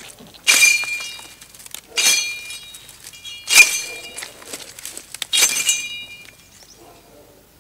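Four strokes of a machete, each giving a bright metallic ring that dies away, about one every one and a half seconds, as weeds along an old railway track are hacked back.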